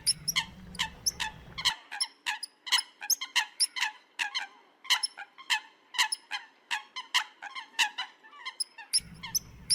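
Eurasian coots calling: a rapid string of short, sharp calls, about two to three a second.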